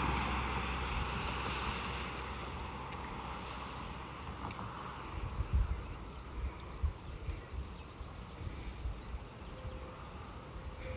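Outdoor background before the siren sounds: a vehicle fading away in the first couple of seconds, then wind gusting on the microphone. A faint rapid ticking rises high up in the middle, and a faint steady tone comes in near the end.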